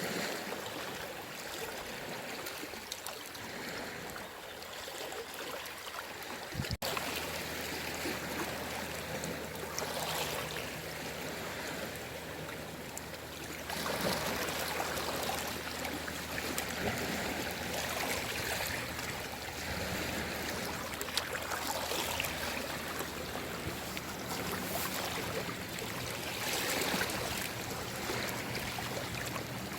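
Sea waves washing and surging in a steady wash, swelling several times. After a brief break about seven seconds in, a low steady hum runs underneath.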